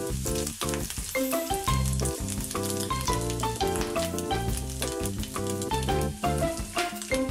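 Chopped bacon sizzling and crackling in a nonstick frying pan, over background music with a melody and a steady bass line.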